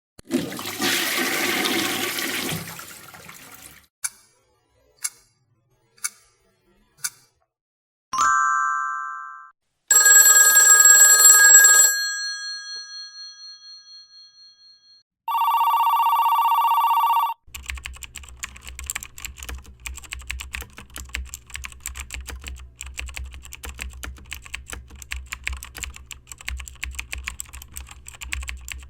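A string of sound effects one after another: a rushing noise for about three seconds, four sharp clicks a second apart, a short high chime, a bright bell-like ring that fades slowly, a steady two-second buzzer that cuts off, then computer keyboard typing through the rest.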